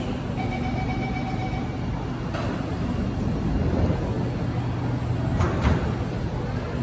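SMRT C751B metro train closing its doors and pulling away: a short steady warning tone sounds, a knock comes as the doors shut, then the train starts off with a steady low hum that grows stronger.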